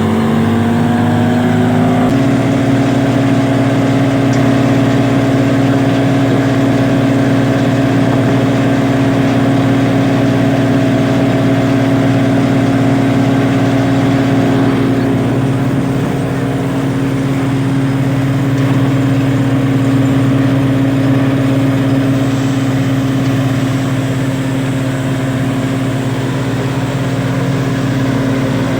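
Wheat thresher machine running loud and steady. Its hum rises in pitch over the first two seconds as it comes up to speed, then holds even.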